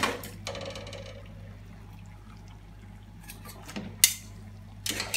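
Mussels and clams simmering in a pan of tomato-and-wine sauce as spaghetti is dropped in and worked in by hand. There is a sharp knock about four seconds in and a short clatter near the end, over a steady kitchen hum.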